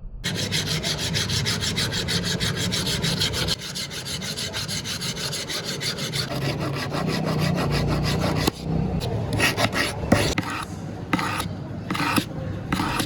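Rapid, rhythmic rasping strokes of hand abrading on the workpiece, typical of filing or sanding during shaping and finishing. About eight and a half seconds in, the strokes change to slower, separate passes about half a second apart.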